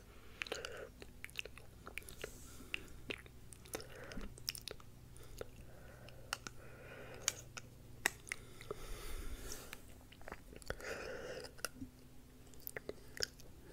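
ASMR mouth sounds: an irregular, fairly quiet run of small sharp clicks and smacks from the lips and tongue, with soft breathy patches between them.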